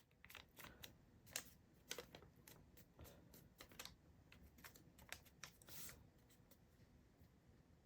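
Faint, irregular crackling and rustling of a sheet of paper being handled and creased, a quick run of small crinkles for about six seconds before it goes quiet.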